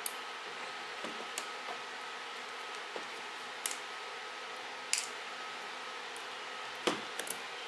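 Small metal hand tool clicking and ticking against the tiny metal parts of a camera lens as it is taken apart: several sharp, irregularly spaced clicks over a steady hiss.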